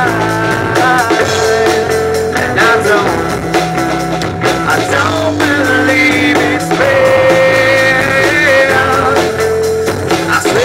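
Live rock band playing loudly on electric guitars and bass, with a man singing into a microphone.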